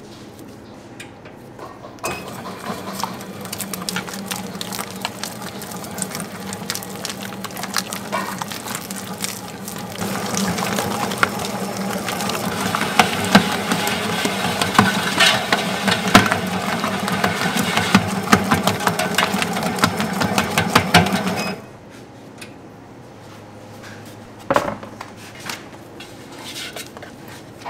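A motor-driven machine starts about two seconds in and runs with a steady hum and a fast, dense rattle. It gets louder about ten seconds in and cuts off suddenly near the end, followed by a few separate knocks.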